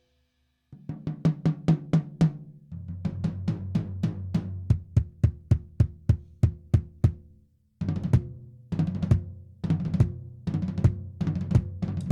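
Restored Made-in-Japan Black Jack drum kit played in fills of quick strikes around the toms, each stroke ringing on at its own pitch. The fills move from a higher tom down to a lower one, stop briefly about seven seconds in, then start again.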